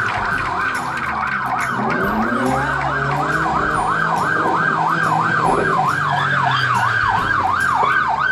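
Police patrol car siren wailing in fast, even up-and-down sweeps, about three a second, with a low vehicle hum beneath it.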